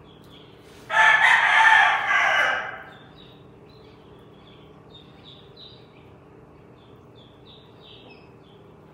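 A rooster crows once, a loud, harsh call of about two seconds that starts about a second in. Faint, short, high chirps repeat after it.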